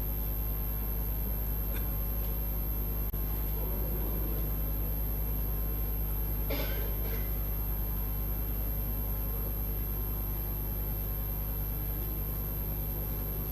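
Steady low electrical hum on the sound feed, with one brief faint noise about six and a half seconds in.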